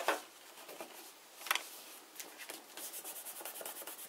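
Fingers rubbing paper flat onto glued cardstock in quick, scratchy back-and-forth strokes, about five a second, beginning a little over halfway through. Before that, a sharp tap at the start and another about a second and a half in as the paper is handled.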